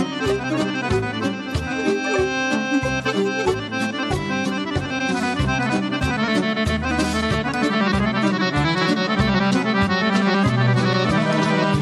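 Serbian folk orchestra playing an instrumental passage between sung verses, accordion to the fore over a steady beat.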